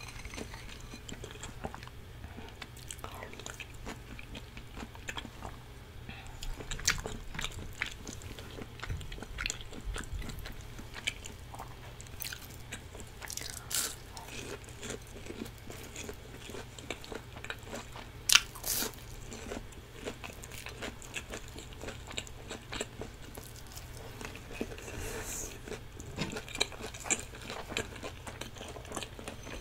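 Close-miked chewing and biting of a person eating cheese tteokbokki in sauce and a fried cheese stick, with mouth sounds and scattered sharp clicks. One click a little past the middle is the loudest.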